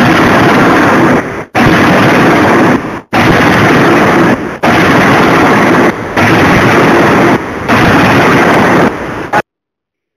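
A 200 kJ CNC hydraulic die forging hammer striking a hot turbine-blade forging. There are six heavy blows about a second and a half apart, each starting abruptly as a harsh, overloaded roar. The blows stop abruptly near the end.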